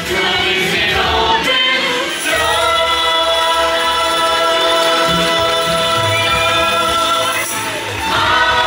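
Background music with a choir singing long held notes.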